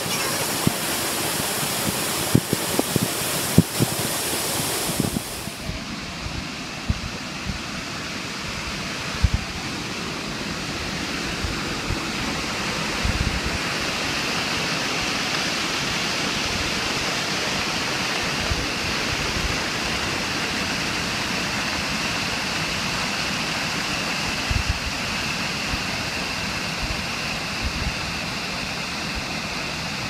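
Waterfall pouring steadily, a constant rush of falling water. There are a few sharp knocks in the first few seconds, and the sound changes abruptly about five seconds in, then stays steady.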